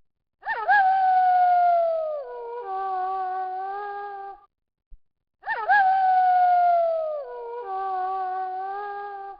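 Wolf howling: a howl that swoops up and then slowly falls, followed at once by a lower, steadier howl. The same pair of howls comes again about five seconds later.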